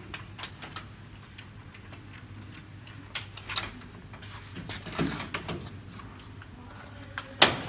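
Scattered clicks and light knocks from hands working the frame edge, membrane and latch clip of a vacuum membrane press, with one sharp click near the end, over a low steady hum.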